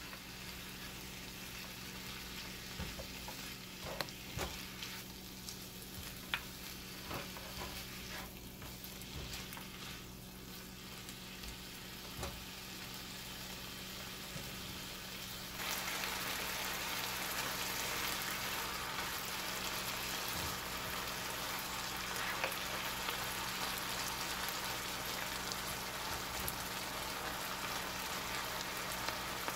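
Cubed lamb on the bone sizzling as it fries in a nonstick frying pan, with scattered clicks and scrapes of a plastic spatula stirring it in the first half. About halfway through the sizzle turns suddenly louder and steadier, as the meat's released juices boil off in steam.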